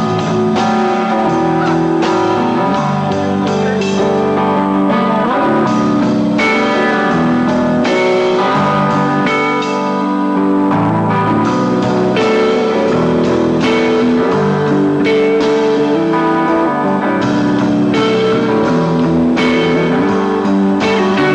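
Live rock band playing: two electric guitars over a drum kit, with steady drum and cymbal hits.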